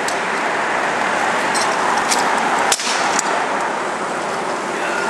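Stunt scooter wheels rolling on rough tarmac, with a few sharp clacks and one loud smack a little under three seconds in as the scooter lands a triple tailwhip.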